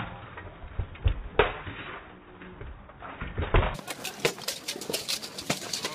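Irregular clanks and knocks of steel weapons striking plate armour and shields in an armoured melee, several in quick succession, the sharpest about a second and a half in.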